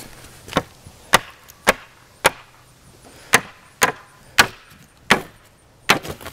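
Hammer blows on a wooden pallet: about nine sharp whacks, roughly two a second with a short pause midway, knocking a board loose from the pallet.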